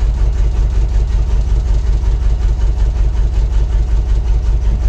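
Engine of a Broderson carry deck crane idling steadily, heard from inside the operator's cab.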